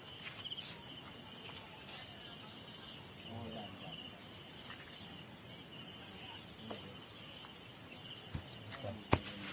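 Steady, high-pitched drone of insects, unbroken throughout, with a single sharp click near the end.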